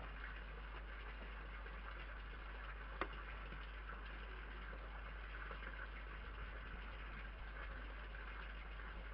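Red fox eating meat scraps from a plate, with faint chewing ticks and one sharper click about three seconds in, under the steady hiss and low hum of a security camera's microphone.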